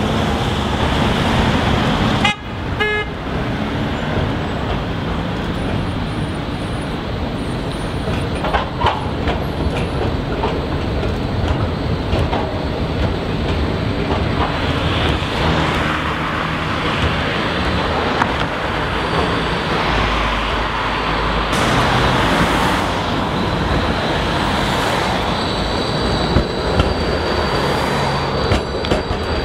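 Street traffic at a tram junction: cars driving past and an articulated E-class electric tram running by on its rails. Near the end a thin, high, steady squeal comes in as a tram takes the curve, typical of tram wheels squealing on curved track.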